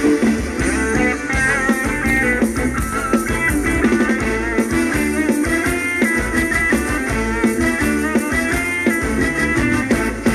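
Live ramwong dance-band music with a steady beat, an instrumental passage without singing.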